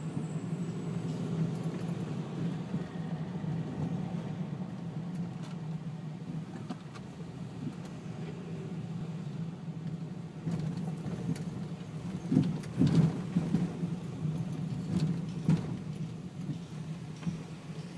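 Car engine and road noise heard from inside the cabin of a slowly moving car: a steady low hum, with a few short knocks and rattles in the second half.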